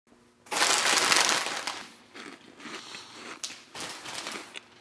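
Plastic snack bag crinkling as a hand grabs and turns it, loudest for about a second and a half near the start, then softer rustles and crackles.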